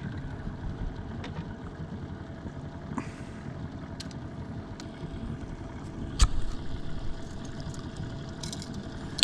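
Small outboard boat motor idling steadily, with a few sharp knocks or clatters from the boat, the loudest about six seconds in, while a pike is landed at the boat's side.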